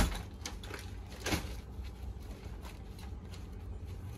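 A Decathlon camping tent and its nylon carry bag being handled and unpacked on a hard floor: a sharp knock at the very start, a smaller one about a second in, then light rustling and scattered soft clicks.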